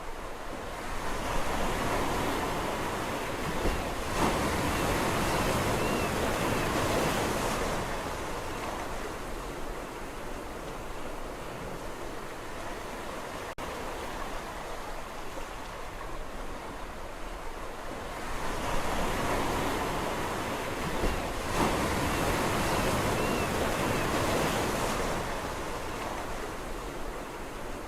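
Sea waves washing onto the shore: a steady surf hiss that swells twice, each wave building for a few seconds and then drawing back, about seventeen seconds apart.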